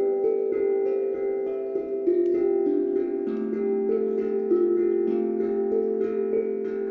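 Calm instrumental music of ringing, bell-like notes, each starting sharply and sustaining long enough to overlap the next.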